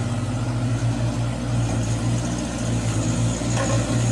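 Engine-idling sound effect: a steady, even low rumble.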